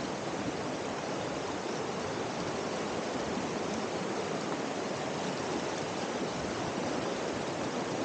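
Mountain creek rushing steadily over rocks, heard from mid-stream.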